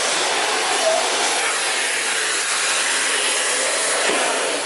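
Miele C3 Brilliant canister vacuum cleaner running steadily: an even, constant hiss of motor and airflow.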